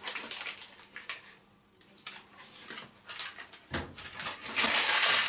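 Kitchen handling noises as a piece of lard is put into a big cooking pot: scattered clicks and knocks, then a louder scraping rustle near the end.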